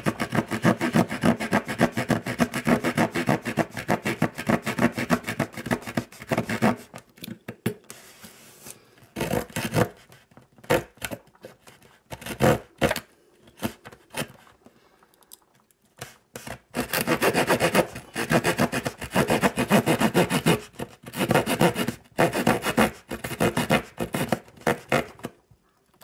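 Victorinox Evolution Grip S17 pocket-knife wood saw cutting into a block of wood with quick back-and-forth strokes, cutting on both push and pull. The strokes thin out to a few scattered ones for about ten seconds in the middle, then the fast sawing starts again and runs until just before the end.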